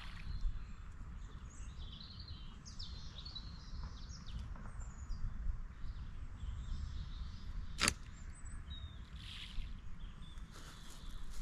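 Small birds chirping in short bursts over a low steady rumble. About eight seconds in comes one sharp snap, a bait catapult firing a pouch of hemp loose feed.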